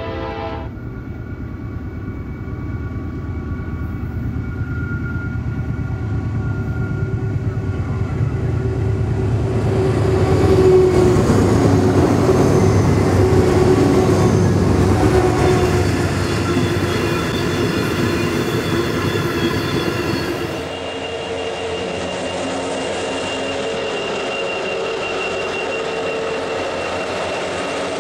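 Several heavy-haul diesel-electric locomotives on an iron ore train pass close by. Their engines run hard over the rumble of steel wheels on rail, with steady whining tones on top, and the sound is loudest as the locomotives go past about a third of the way in. About two-thirds in, it changes abruptly to another set of locomotives passing.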